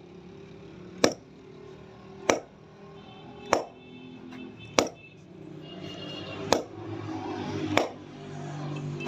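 Background music with a sharp percussive hit about every one and a quarter seconds.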